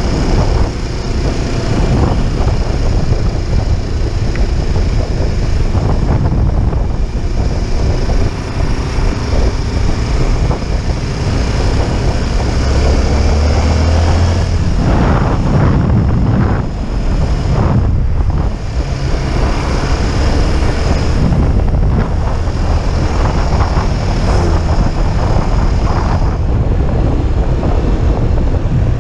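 Motorcycle engine running under way, with heavy wind buffeting on the camera microphone; the engine pitch rises and falls a few times.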